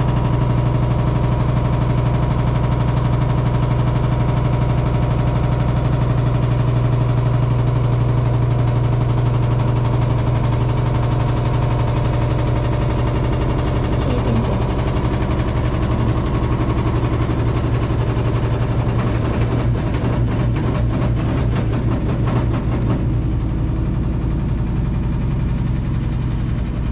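Hitachi SF-150TCV 15 kg top-loading washing machine spinning, a loud steady drone and hum from inside the tub, with its pitch shifting about halfway through and a brief stretch of rapid rattling about twenty seconds in. The owner finds the spin noise abnormally loud and suspects the drum shaft is wobbling or not locked tight.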